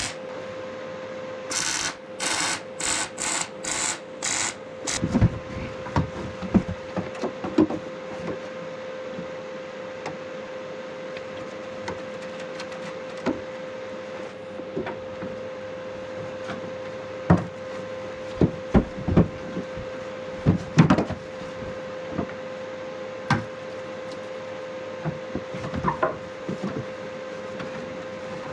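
Arc welding on steel roll-cage tubes: the arc crackles in about seven short bursts in the first five seconds, as short welds are laid one after another. Sharp knocks and clunks follow scattered through the rest, over a steady hum.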